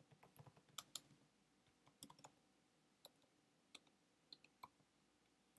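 Faint computer keyboard typing: irregular single keystrokes and short runs of clicks as a line of code is typed.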